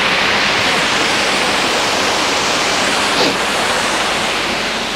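Steady, loud rush of falling water from a waterfall.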